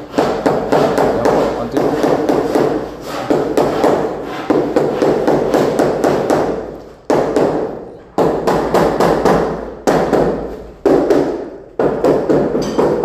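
Mallet tapping a 60 by 60 floor tile down into its adhesive bed: rapid runs of dull knocks, several a second, broken by short pauses. The tile is being bedded so it sits firm and won't sound hollow.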